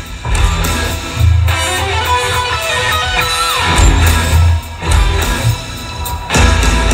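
Heavy metal band with a string orchestra playing live, electric guitar to the fore, the heavy bass and drums dropping in and out every second or two. A guitar note bends down about three and a half seconds in.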